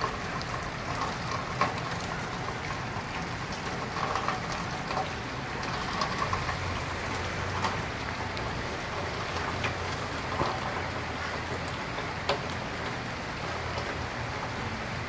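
Steady rain falling on the yard, with scattered louder drops striking a hard surface close by.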